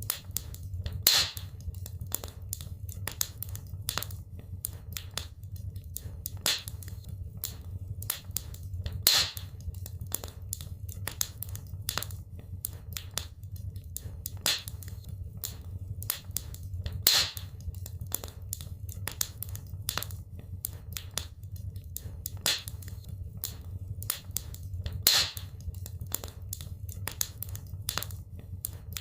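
Wood fire in a fireplace crackling, with irregular sharp pops and snaps over a steady low rumble. A louder pop stands out about every eight seconds.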